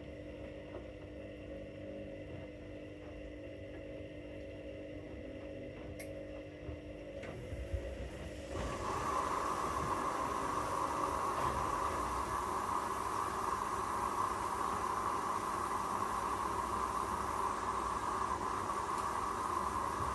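Hoover washing machines running a wash programme: a steady machine hum, then about eight seconds in a louder steady rushing noise starts and cuts off suddenly at the end.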